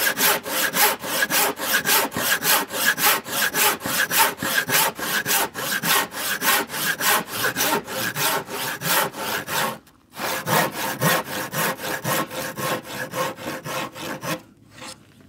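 Handsaw cutting through a softwood stair string in quick, even back-and-forth strokes, about three to four a second. The sawing breaks off briefly about two-thirds of the way through, resumes, then stops shortly before the end.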